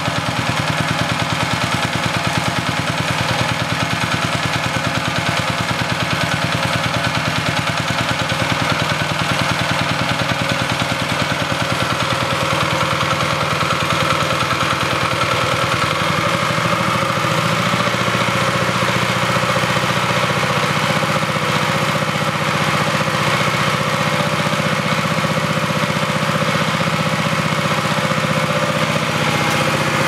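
Small stationary engine running steadily just above idle with its governor off, belt-driving an alternator under load. Its note shifts slightly a little past the middle.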